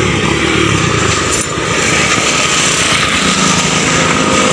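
A small engine running steadily, loud and continuous.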